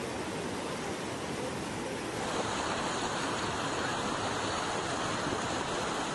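Fast-flowing river rapids rushing, a steady noise that grows a little louder about two seconds in.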